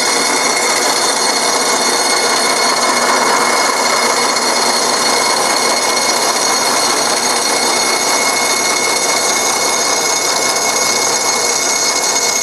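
Forrest Manufacturing Model 214 tilting-head bandsaw running, its 1/2-inch, 3-teeth-per-inch blade cutting through high-density polyethylene foam. It makes a steady, even whine with no breaks.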